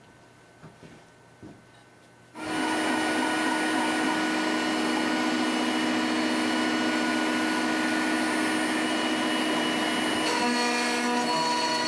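ShopBot Desktop CNC router spindle starting abruptly after a couple of seconds of quiet with a few faint clicks, then running steadily with a whine. About ten seconds in, further whining tones join as the machine's axis motors start moving the cutter along the walnut blank on the rotary indexer.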